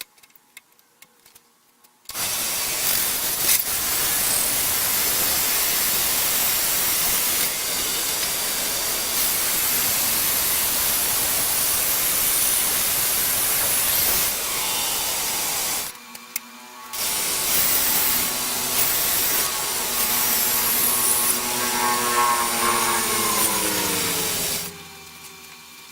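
Bandsaw running and cutting through a wooden drawer blank, in two long stretches with a short break about 16 seconds in. Near the end the pitch falls away as the saw winds down and stops.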